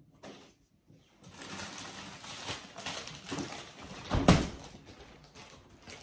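Lettuce being handled for a salad: rustling and crinkling, with one loud knock about four seconds in.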